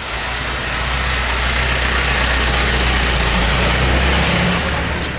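Tractor pulling a trailer passing close by, its engine a low steady hum that grows louder to a peak about three to four seconds in and then falls away near the end.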